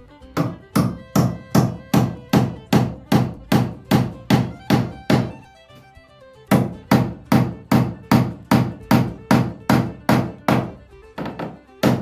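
Hammer driving nails, a steady run of sharp ringing blows about two and a half a second, nailing a new-construction outlet box in place. The blows stop briefly about five seconds in, start again, and end with a few lighter taps and one last hard blow.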